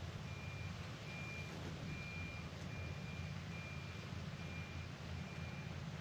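A vehicle's reversing alarm beeping at one steady high pitch, seven times at a little under one beep a second, over a steady low rumble.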